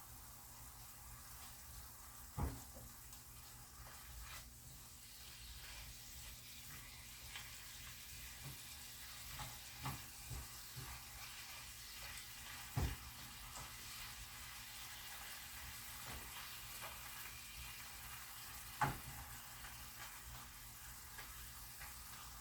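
Chicken pieces frying in oil in a pan with a faint steady sizzle as the chicken's released liquid cooks off, the pan not hot enough to sear it quickly. A few sharp knocks of a utensil against the pan stand out, the loudest about halfway through and near the end.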